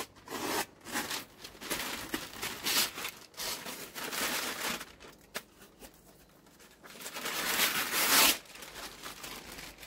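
Brown masking paper and tape being peeled off a freshly painted van panel, tearing and crinkling in irregular bursts. About seven seconds in, a longer, louder rustle comes as a large sheet is pulled up and away.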